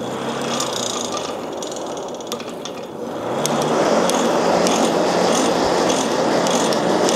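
Hand-cranked forge blower being turned, its gears whirring as it forces air into the burning wood-scrap fire. It gets louder and faster about three seconds in, then stops abruptly near the end.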